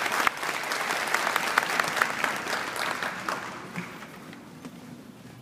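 Audience applauding, a dense patter of many hands clapping that fades away about three to four seconds in.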